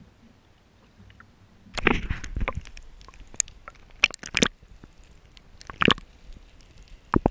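Water sloshing and gurgling around a camera as it is dipped under the sea surface, starting with a burst of splashing about two seconds in, followed by muffled underwater knocks and clicks.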